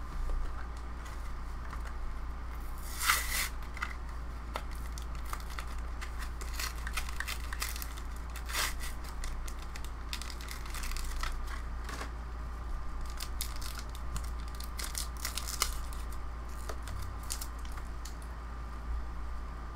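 Foil booster-pack wrapper of trading cards being torn open and crinkled, with the loudest rip about three seconds in, followed by scattered crackles and clicks as the cards are pulled out and handled.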